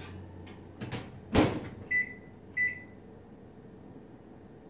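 Oven door pushed shut with a knock and a thud, followed by two short electronic beeps from the range's control panel as the oven timer is set.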